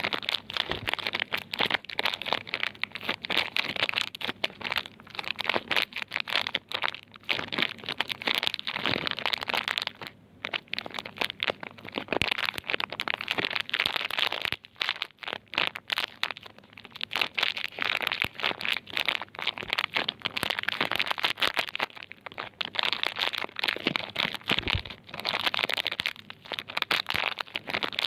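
Plastic soap wrapping crinkling and crackling continuously as bars of soap are handled and unwrapped, a dense run of small crackles with brief pauses.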